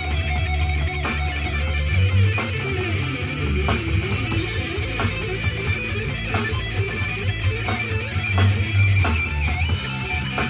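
Rock music: distorted electric guitar over a steady drum beat, with a drum kit played along to the song.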